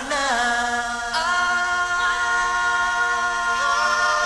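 Slow-jam R&B song's vocal group holding a sustained harmony chord on a long final note, with more voices joining about a second in and again near the end.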